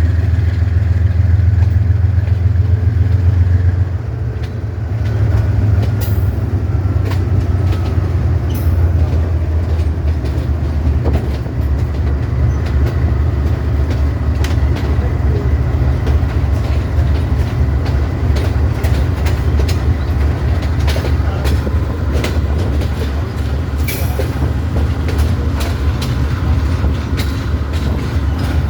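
GE U20 diesel-electric locomotive running with a steady low engine drone as the train moves. From about six seconds in, the wheels click repeatedly over the rail joints.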